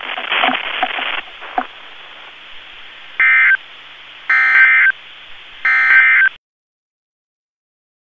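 Three short, loud buzzing data bursts from a NOAA Weather Radio broadcast, about a second apart over a background of radio hiss: the EAS/SAME end-of-message tones that close the Required Weekly Test. The audio cuts off abruptly right after the third burst.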